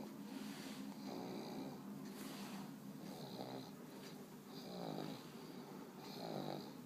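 A pug snoring as it dozes off: a rattling, buzzing snore on each breath, repeating about every second and a half.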